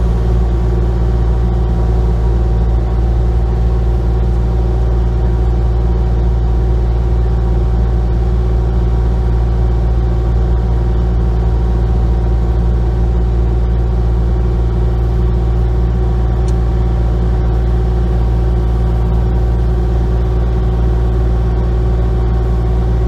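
Excavator's diesel engine running steadily at a constant pitch, with no change in load.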